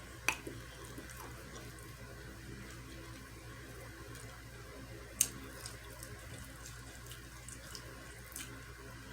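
Low steady hum with a faint even hiss, broken by two short sharp clicks, one just after the start and one about five seconds in.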